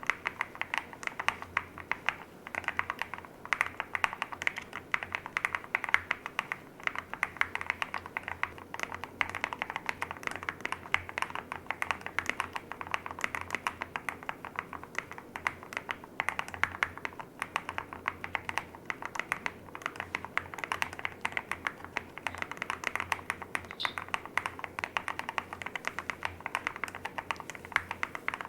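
Continuous fast typing on a custom mechanical keyboard (Swagkey Transition LITE in a clear case, with Haimu RAW switches), a dense patter of keystroke clacks that never lets up.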